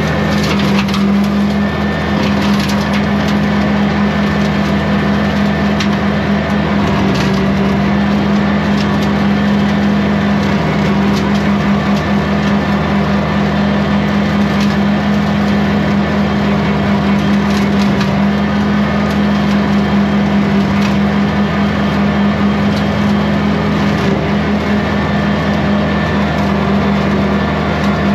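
Kubota compact tractor's diesel engine running at a steady speed while driving a Land Pride rotary brush cutter. Frequent short snaps and cracks come through as the cutter chops brush and small wood.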